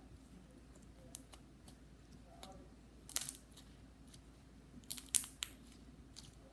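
Slime being squeezed and poked by hand, giving off scattered small clicks and pops, with a cluster a little after three seconds in and another around five seconds in.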